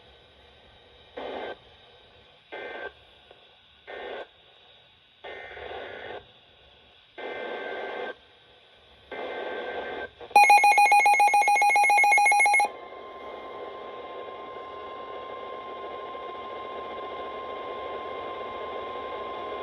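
Emergency Alert System data bursts between two weather warnings: three short screechy bursts that close the previous message, then three longer header bursts for the next alert. Then comes a loud, rapidly pulsing electronic alert beep for about two seconds, followed by a single steady attention tone.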